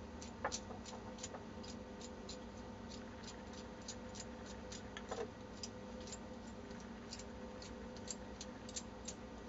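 Faint, quick ticking, a few small clicks a second, with two slightly louder clicks about half a second in and midway through. The clicks come as a Solidoodle extruder's heater core is unscrewed by hand from its threaded brass heater barrel. A faint steady hum lies underneath.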